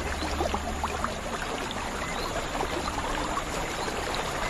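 Night-time tropical ambience of calling frogs and insects: a dense, steady hiss dotted with many short chirps.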